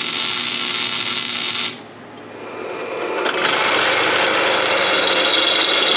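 MIG welder arc buzzing and crackling as steel plate is welded to square tubing, cutting off after about two seconds. A drill press then starts up and runs steadily, its bit drilling into steel square tubing.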